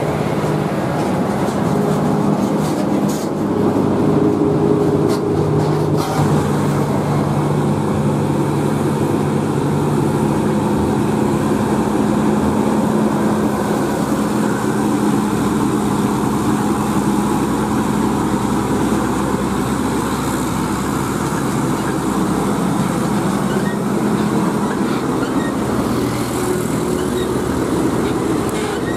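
DAF CF85 430 tractor unit's straight-six diesel engine pulling a semi-trailer up a hill, holding a steady engine note as the truck approaches and goes by. The note eases off near the end.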